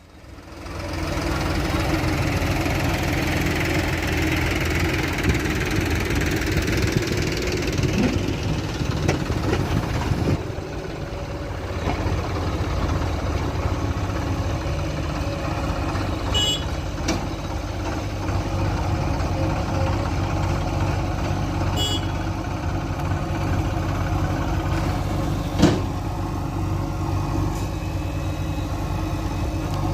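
A heavy diesel engine running steadily. It comes in about half a second in, with a few faint metallic clinks through the middle and one sharp knock near the end.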